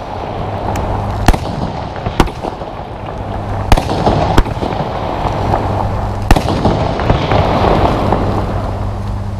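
Compound firework battery (Verbundfeuerwerk) firing: about five sharp bangs of shells going off, over continuous crackling and hissing effects that swell near the end.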